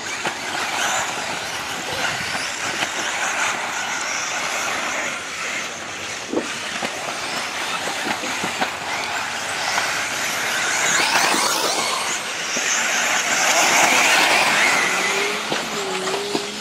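1/10-scale electric 4WD off-road RC buggies racing on a dirt track: a continuous hiss of motors and tyres scrabbling over loose dirt, swelling as cars pass close about eleven and fourteen seconds in.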